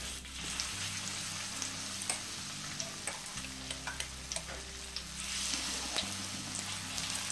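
Corn and shrimp fritter batter frying in hot oil in a wok: a steady sizzle scattered with sharp crackles and pops as the corn spits, growing a little louder toward the end as another spoonful of batter goes in.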